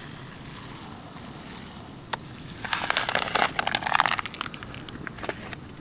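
A plastic food packet crinkling and rustling as it is handled, in a dense burst of crackles about halfway through, over a steady low background hiss.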